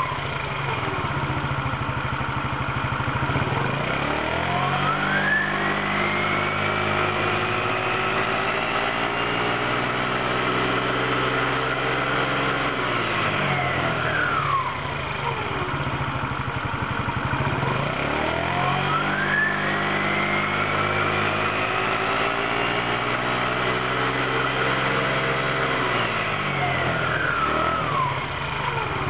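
Baotian scooter's 139QMB 50cc four-stroke single-cylinder engine driving its CVT belt transmission, revved twice: the pitch climbs quickly from idle, holds high for about eight seconds, then falls back to idle. It opens by settling to idle, and near the end the revs drop again.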